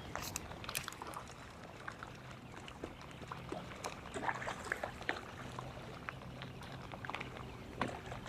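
Scattered small water splashes and sharp ticks around a fishing boat, with white bass breaking the surface nearby, over a faint steady low hum.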